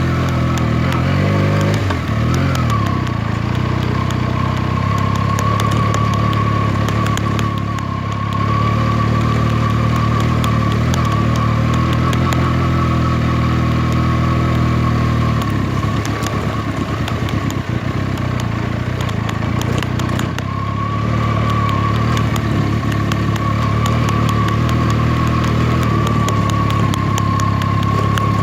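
Benelli TNT 300 parallel-twin motorcycle engine running at fairly steady revs, with a steady high whine over the engine note. The engine note shifts about two seconds in, and again between about 16 and 20 seconds in.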